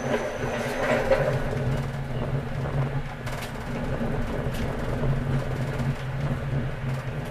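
Tram running, heard from the driver's cab: a steady low hum from the drive, with a few sharp clacks as the wheels pass over the crossing tracks and switches of a junction.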